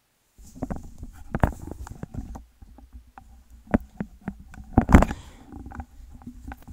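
Handling noise from a Razer gaming headset being put on over the ears: rubbing and rumbling against hair and ear cups, with many sharp plastic clicks and knocks, the loudest knock about five seconds in.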